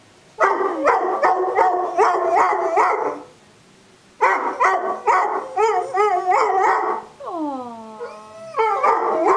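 A dog 'singing': runs of pitched, yowling howl-barks about three a second, broken by a short pause, then a long falling howl about seven seconds in and another short run near the end.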